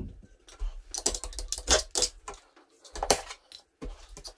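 Knife cutting and scraping at the underside of a wall cabinet: a string of irregular sharp clicks and short scrapes.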